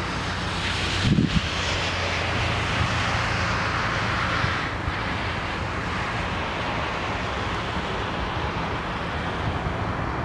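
Airbus A320-family airliner's jet engines running at takeoff thrust during the takeoff roll, a steady rushing noise, with wind buffeting the microphone.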